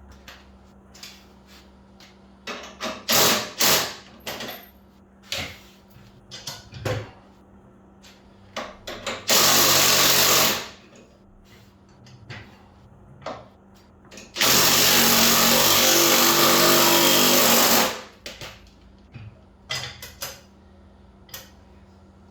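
A power tool runs in two bursts, one of about a second and a longer one of about three and a half seconds, the loudest sounds here. Scattered clicks and knocks of hand work come between them, over a faint steady hum.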